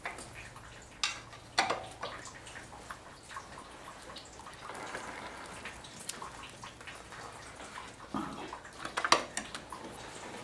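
A long wrench on a Toyota 1ZZ-FE's serpentine belt tensioner: light metallic clicks and knocks as it is fitted and levered to slacken the belt, with a soft rubbing stretch in the middle, engine off.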